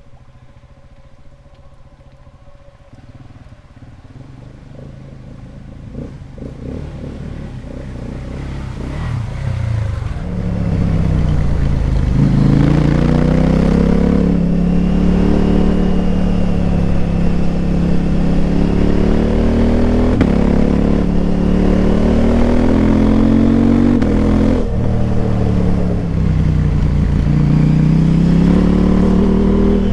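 KTM 890 Adventure R's parallel-twin engine through a Wings slip-on exhaust with the dB killer removed. It is faint at first and grows louder over the first ten seconds or so. It then runs loud, the pitch climbing and falling again and again under throttle and through gear changes, with a sharp brief dip about 24 seconds in.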